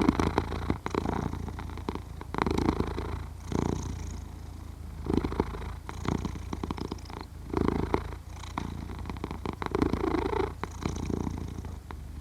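Sleeping domestic cat purring steadily, with a low continuous rumble that swells with each breath about every two to three seconds.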